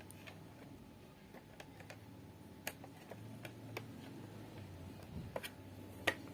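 Faint, scattered light clicks and taps of hands handling an SSD and its drive bracket in an open laptop's drive bay, about half a dozen irregular ticks, the sharpest near the middle and near the end.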